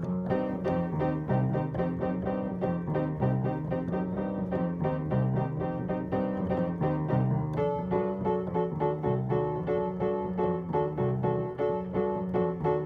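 Background music led by piano or electric piano, with a repeating bass line and a steady beat.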